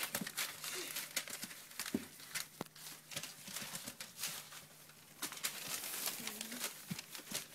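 English bulldog puppies scrambling and wrestling on newspaper: the paper crinkles and rustles, with many small clicks and scratches from paws and claws, and a short puppy grunt about six seconds in.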